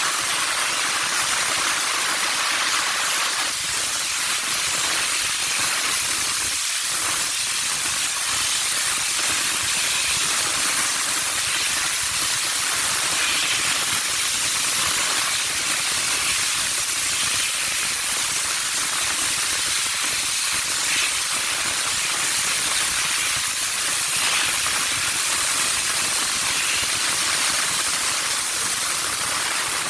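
Steam car-wash wand jetting steam onto a car's wheel and tyre: a steady, unbroken hiss.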